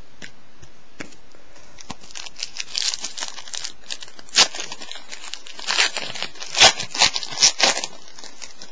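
Plastic wrapper of a trading-card pack being torn open and crinkled in the hands. A run of sharp crackles starts about two seconds in and is loudest in the second half.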